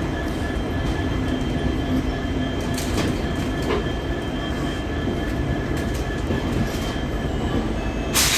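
Coaches of an arriving passenger train rolling past the platform: a steady rumble of wheels on rail with faint wheel clicks. About eight seconds in, a short sharp burst of hissing noise is the loudest moment.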